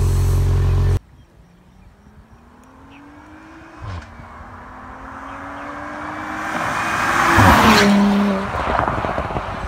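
Porsche Panamera fitted with an aftermarket valved cat-back exhaust and catless downpipes: for the first second it runs loudly and steadily at the tailpipes. It is then heard accelerating hard toward the listener from a distance, engine note rising, dipping at an upshift about four seconds in, and rising again. It passes loudly about seven and a half seconds in and fades off.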